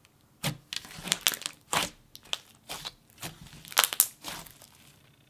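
Thick blue jelly slime being squished and pressed flat by hand, giving a string of irregular sticky crackles and bubble pops that begin about half a second in.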